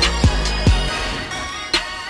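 Music with a beat: three deep, booming kick-drum hits that slide down in pitch in the first second, then a sharp snare-like hit near the end.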